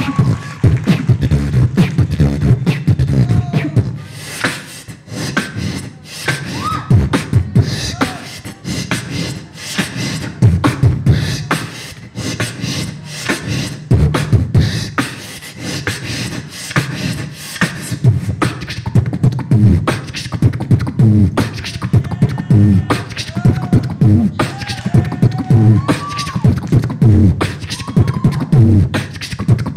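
A woman beatboxing solo into a handheld microphone: fast vocal kick-drum thumps, snares and hi-hat clicks in a steady rhythm, with short pitched vocal slides mixed in, more of them in the second half.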